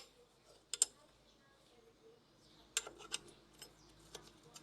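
Scattered sharp metallic clicks and clinks of metal parts and tools being handled during work on an EGR valve: a double click about a second in, a quick cluster near three seconds, and one more shortly before the end.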